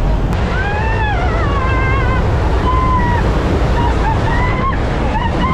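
Loud, steady rush of wind and aircraft engine noise in the cabin of a skydiving plane with its door open at altitude. A high-pitched voice cries out over it at times.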